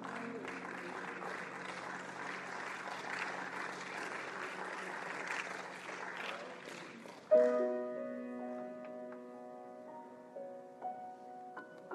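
Audience applauding for about seven seconds, fading out. Then a keyboard chord is struck suddenly and loudly and held, with single notes added over it.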